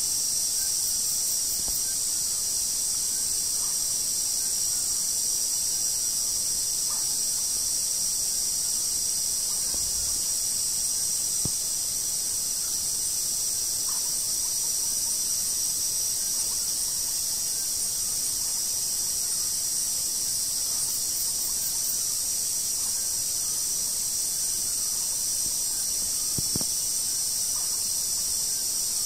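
Steady chorus of crickets and other night insects in woodland at nightfall: a dense, high-pitched trilling in several overlapping layers, unchanging throughout, with a couple of faint knocks in the middle and near the end.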